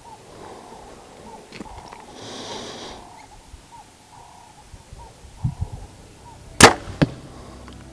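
Hoyt compound bow firing an arrow about six and a half seconds in: one sharp, loud crack of the string on release, followed about half a second later by a fainter knock.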